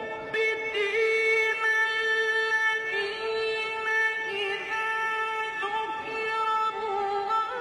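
Background music of long held, gently wavering notes, with a singing voice or voice-like instrument, changing note every second or two.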